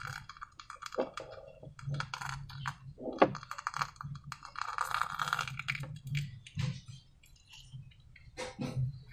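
Slime being mixed and handled: irregular small clicks, taps and sticky squishes, with one sharper click about three seconds in.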